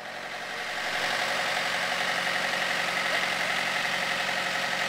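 An engine running steadily, growing louder over about the first second and then holding even.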